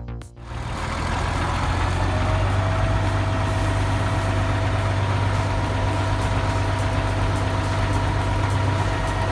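Bulldozer's diesel engine running steadily with a deep hum; a thin steady whine joins about two seconds in.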